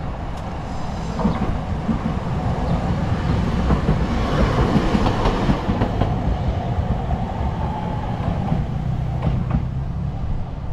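Toden Arakawa Line tram passing close by on its rails, wheels running over the track. It is loudest about halfway through and fades as it moves off, with a faint whine that drops slightly in pitch as it recedes.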